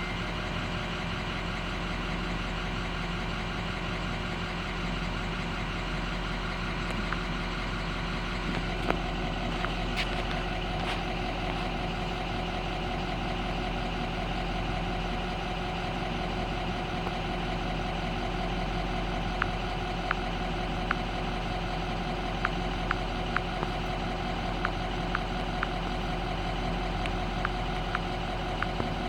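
Ford 6.0 L Power Stroke V8 diesel engine idling steadily, with a few faint clicks in the last third.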